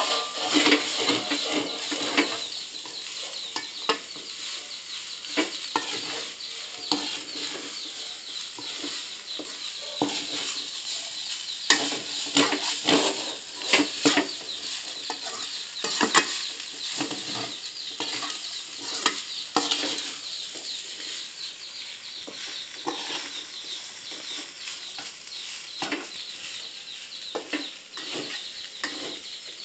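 A spatula scraping and knocking against a metal wok as fried rice is stirred over the heat, with irregular clanks over a steady frying sizzle.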